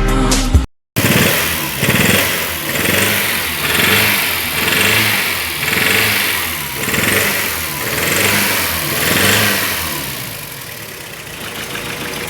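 Volkswagen AP inline-four engine revved repeatedly, swelling and falling about once a second, then settling to a steadier, quieter run near the end. It is running rough and noisy on only two cylinders because of a blown head gasket, a noise the mechanic says can be mistaken for a bottom-end fault.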